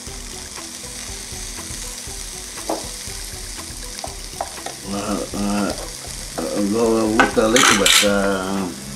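Shrimp sizzling on the hot plates of an electric panini grill press, with a few light clicks of a fork against the grill as they are turned. From about halfway in, a person's voice comes in over the sizzling and is the loudest sound, with a brief louder hiss near the end.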